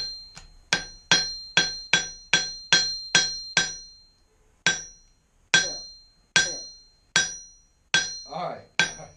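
Hammer blows on a steel anvil, each strike ringing the anvil with a bright, high tone as a ball of slime on its face is smashed. About ten quick blows come roughly two a second, then after a short pause about four seconds in, six slower ones about a second apart.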